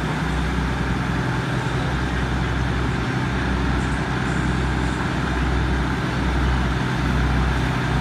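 State Railway of Thailand diesel railcar running with a steady low engine drone as it rolls slowly along the platform, growing a little louder near the end as it comes closer.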